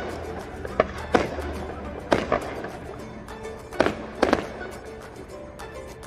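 Fireworks going off: a run of sharp bangs, several in close pairs, that stops about four and a half seconds in, with music playing underneath.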